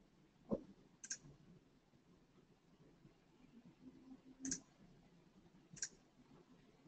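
Faint computer mouse clicks over near silence: a low thump about half a second in, then three short, sharp clicks spread over the next five seconds.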